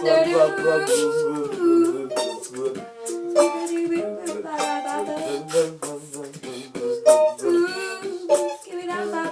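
Wordless vocal music: a voice carries a melody of held and gliding notes over beatboxed percussion, with quick mouth-made clicks and hi-hat-like hisses.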